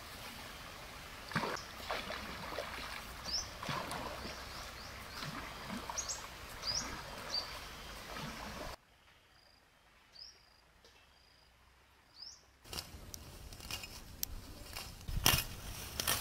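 Outdoor ambience: short rising bird chirps repeat over a steady background hiss, with scattered rustles and footfalls in vegetation. The background cuts out abruptly about nine seconds in, leaving only the chirps, and returns about four seconds later with louder crackling rustles.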